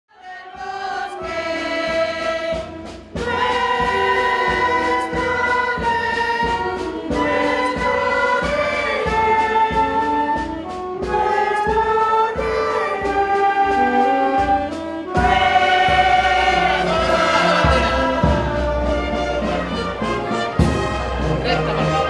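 Slow religious choral music, a choir singing long held notes. About fifteen seconds in it swells, with a heavier low accompaniment joining.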